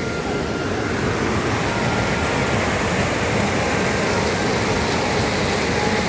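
Steady, even rushing of a muddy river flowing fast with rain from upstream.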